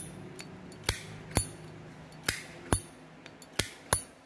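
Zippo lighter being handled: about seven sharp metal clicks and clinks, coming in uneven pairs like the hinged lid being flipped open and snapped shut.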